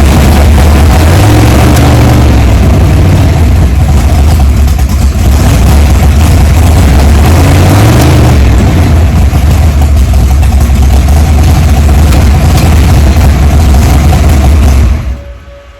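Car engine running loud, with the revs climbing and then dropping twice as the electrically shifted transmission changes gear, set to shift at about 3,000 rpm. The engine sound stops abruptly near the end.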